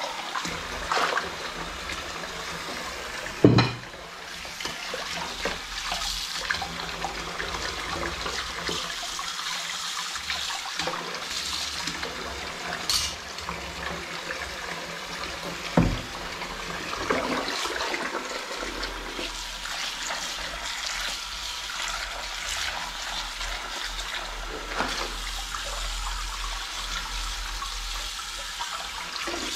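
Kitchen tap running steadily into a sink while dishes are scrubbed and rinsed by hand, with a few sharp knocks of crockery, the loudest about three and a half seconds in and again around sixteen seconds.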